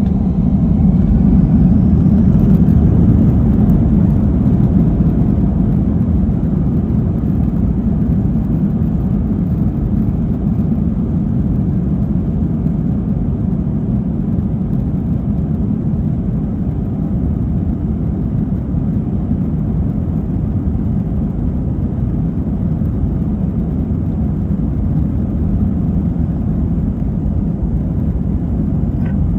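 Airbus A321 jet engines and rushing air heard from inside the cabin, a loud steady rumble, slightly louder in the first few seconds.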